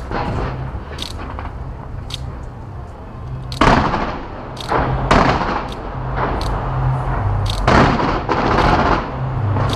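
Fireworks bursting: a steady run of sharp cracks, with three louder booms about three and a half, five and nearly eight seconds in, each one trailing off.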